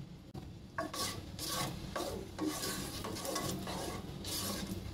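Sliced onions being stirred in oil in a nonstick pot: a run of uneven scraping strokes that starts about a second in.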